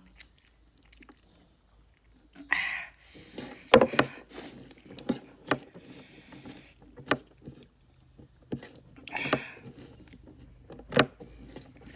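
Close-miked mouth sounds of eating rice and curry by hand: wet chewing and lip smacks, heard as scattered sharp clicks, with two short breathy slurps.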